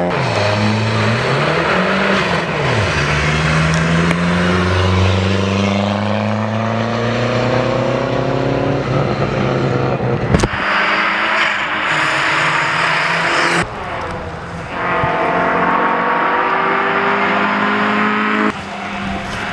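Rally car engines revving hard, rising and falling in pitch through the gears, heard in several short shots cut together. In the first shot the pitch dips and rises, then climbs steadily for several seconds as the car accelerates. A sharp click about ten seconds in is followed by other cars revving up.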